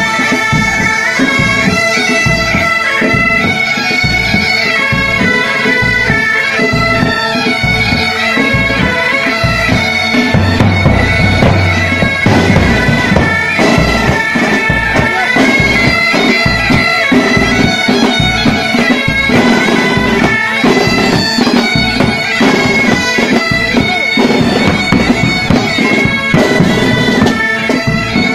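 A pipe band playing: bagpipes sounding a tune over their steady drones, with snare and bass drums beating a regular rhythm underneath.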